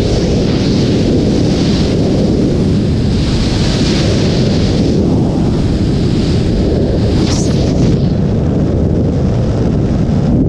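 Loud, steady low rush of freefall wind buffeting an action camera's microphone.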